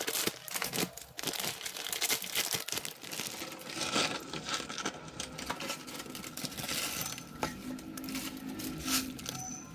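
Plastic instant-noodle packaging crinkling and being torn open, a dense run of irregular crackles.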